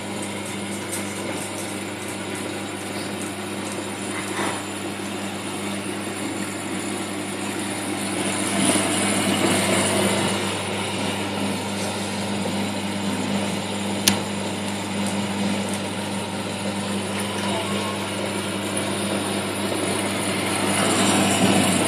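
Avast Marine CS-1 Pegleg recirculating protein skimmer running: a steady pump hum under a rushing hiss of air and water, swelling a little twice, with one sharp click about fourteen seconds in.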